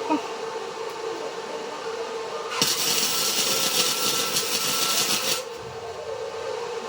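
An electric welder lays a weld on steel: a hissing, crackling burst of about three seconds in the middle, over a steady hum.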